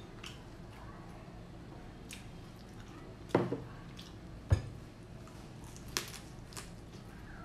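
Eating sounds of a person eating fried field rat with chopsticks: soft wet chewing and a handful of sharp clicks and knocks of chopsticks and a small dipping bowl, the loudest knocks about three and a half and four and a half seconds in.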